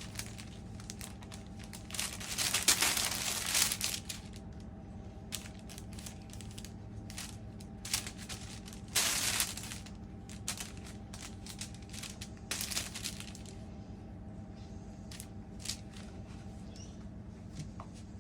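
Baking paper crinkling and rustling under puppies' paws as they step and scramble on it, in several louder bursts with small crackles in between. A faint steady hum runs underneath.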